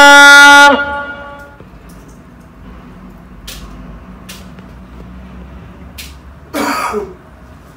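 A long, steady vehicle horn blast that cuts off less than a second in, followed by quiet room tone with a few faint clicks and a short burst of noise near the end.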